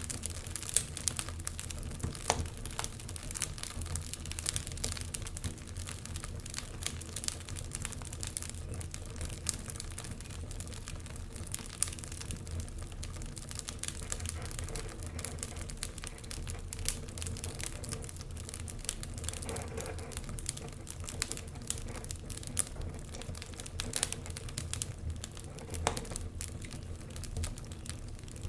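Wood fire burning in a fireplace: continuous irregular crackling and snapping, with a few sharper pops, over a low steady rumble of the flames.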